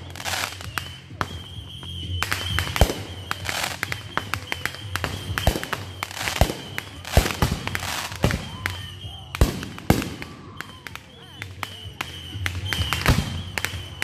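Aerial fireworks bursting overhead: a string of sharp bangs and pops, some coming in quick clusters, throughout.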